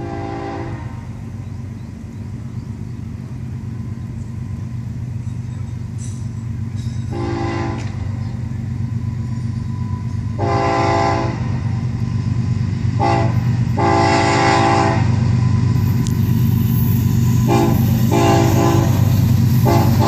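Approaching Florida East Coast Railway freight led by two GE ES44C4 diesel locomotives: a low engine drone that grows steadily louder as the train nears. The lead locomotive's air horn sounds a series of blasts, a long, long, short, long group in the middle (the grade-crossing signal), then a few shorter blasts near the end.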